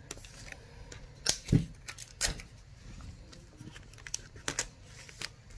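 Scattered light clicks and taps of adhesive tape and fabric being handled as a lining piece is taped in place, with one duller thump about one and a half seconds in.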